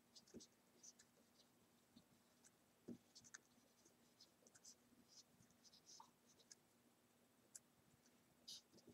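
Faint, intermittent scratching of a felt-tip marker writing on paper, in short separate strokes.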